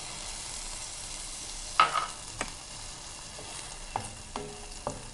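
Orange slices sizzling steadily in an aluminium frying pan over low heat, just wetted with orange blossom water as they cook down toward a syrup. There is a sharp knock about two seconds in, and a few lighter knocks and clicks later as a wooden spatula is worked among the slices against the pan.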